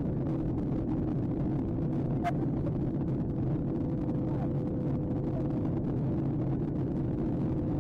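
Airliner cabin noise: the jet engines and rushing air make a steady low drone with a constant hum running through it. A single sharp click comes about two seconds in.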